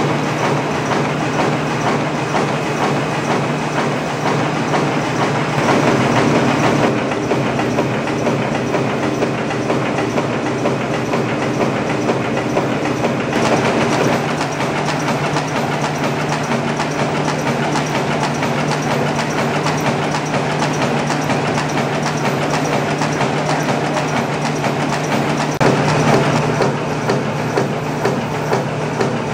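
Kohmann F 1000 window-patching machine running at production speed while punching and scoring cartons: a steady, dense mechanical clatter with a low hum underneath.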